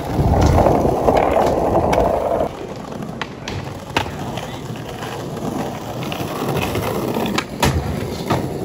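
Skateboard wheels rolling over a paving-stone plaza, loudest in the first two and a half seconds, with a few sharp clacks of boards striking the ground.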